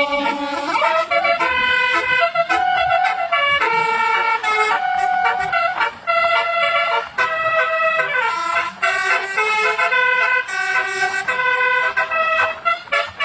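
Basuri telolet bus horn, a multi-tone horn set, playing a tune of held notes that step up and down in pitch, with a few short breaks between phrases.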